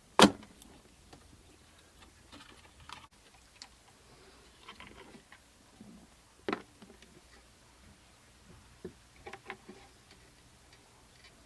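A sharp, loud snap as a computer part is forced into place during a PC build, followed by a few scattered light clicks and knocks of parts being handled.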